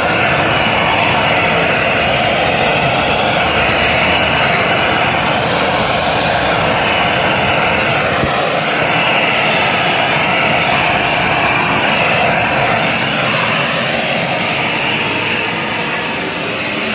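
Loud, steady rushing of an LPG blowtorch flame held against plucked duck carcasses, singeing off the remaining down and pinfeathers. It eases slightly near the end.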